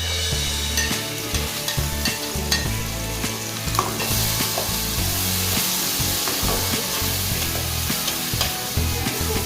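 Food sizzling as it fries in a pan, stirred with a utensil that clicks and scrapes against the pan again and again.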